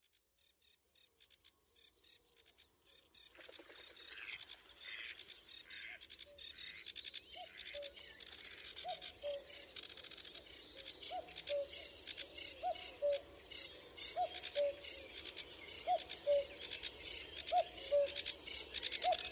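Dawn chorus of many birds chirping and calling over one another, fading in at the start and growing fuller a few seconds in. A lower two-note call, rising then falling, repeats about every second and a half through the second half.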